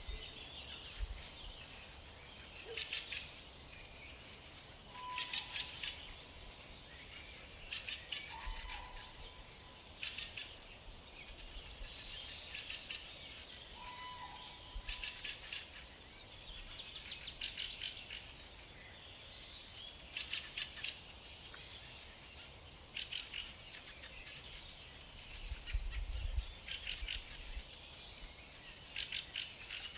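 Several songbirds chirping in short, rapid trills every second or two, with a few brief whistled notes, over a steady background hiss.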